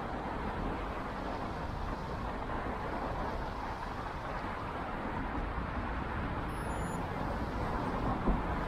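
Steady city street traffic noise from a multi-lane road: an even rush with no distinct events, broken by a couple of short bumps near the end.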